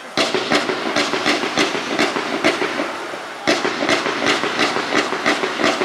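Fireworks going off in a rapid series of sharp bangs, about three a second, with a fresh, louder run starting about three and a half seconds in.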